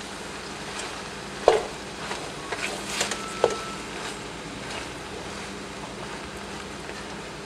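Hands tossing and mixing dry bread cubes in a stainless steel pot, with a few light taps against the metal, over a steady low sizzle from onions and chicken liver frying underneath.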